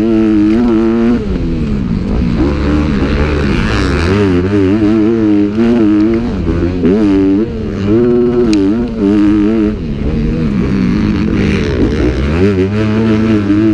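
Motocross dirt bike engine revving hard, its pitch climbing and dropping back again and again as the throttle is worked.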